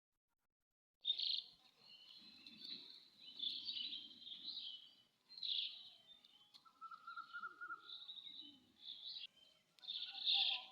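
Small birds chirping and twittering in quick high-pitched bouts, starting about a second in, with a lower buzzy trill near the middle and a faint low rustle underneath.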